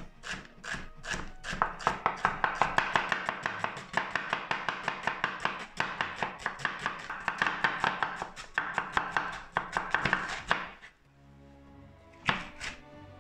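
A cleaver chopping onion on a wooden cutting board in quick, even strokes, about six a second. The chopping stops about eleven seconds in, and a couple of separate cuts follow near the end.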